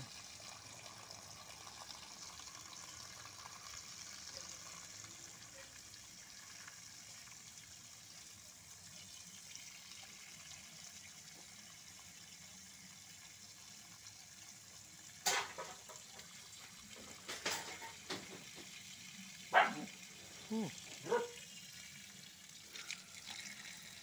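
Backwash water from a sand filter gushing out of a hose onto the ground in a steady rush, as the filter is flushed until the water runs clearer. In the second half, a few short, sharp, louder sounds stand out over it.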